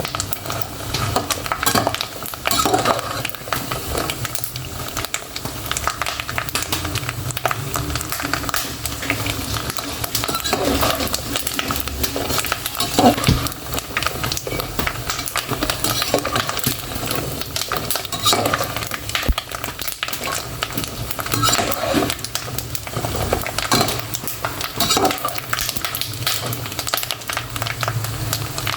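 Pork cracklings (torresmo) frying in hot fat: a steady sizzle thick with quick crackling pops.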